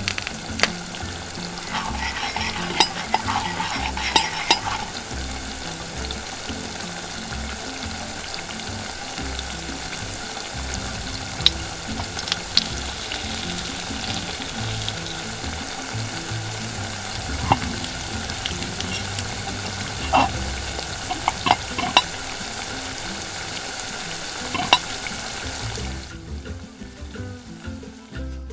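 Melted butter sizzling in a small steel wok as a cheese sandwich fries in it, a steady hiss with a few light clicks against the pan; the sizzling stops near the end.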